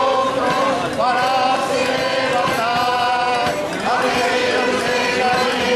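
A choir of men and women singing together, holding long notes.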